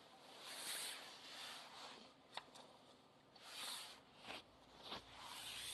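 Faint handling noise: a few soft rustling swells and a couple of light clicks.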